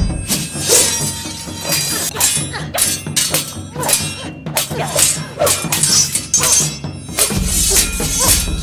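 Sword-fight sound effects: a quick run of sharp weapon strikes and clashes, about two a second, over film score music that grows heavier in the bass near the end.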